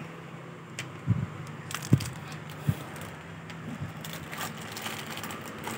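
A spinning fishing reel being handled: a scatter of small clicks and rattles from its parts, with a few dull knocks as it is moved about.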